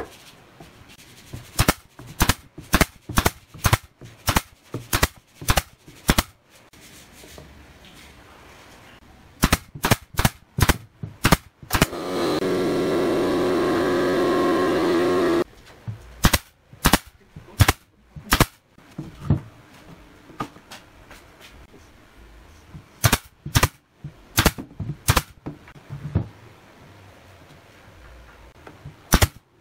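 Pneumatic brad nailer firing brads into pine, in runs of sharp shots a few per second with pauses between. Just past the middle, a steady pitched machine hum runs for about three seconds.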